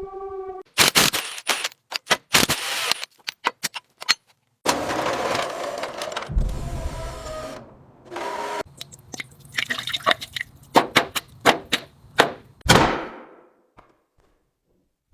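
Workshop sounds of engine tear-down work: a run of sharp metal clanks and knocks with short stretches of hissing noise between them, a fast cluster of clicks about two-thirds through, and a last loud knock before it falls quiet.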